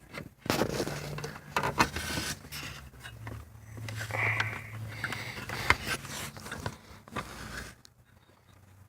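Clicks, knocks and scraping of car parts and tools being handled during a repair, over a faint low hum.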